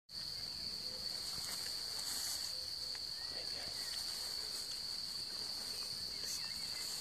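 Crickets calling in a steady, unbroken high-pitched chorus.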